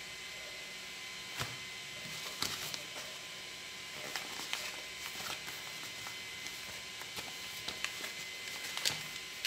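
Yellow padded bubble mailer crinkling and rustling in the hands as it is handled and turned over, in scattered short crackles over a steady background hiss.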